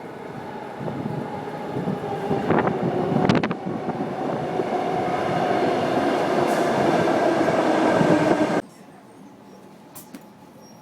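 Underground metro train pulling into the station: a rumble with a steady whine that grows louder, two sharp clatters about three seconds in, then the sound cuts off abruptly near the end.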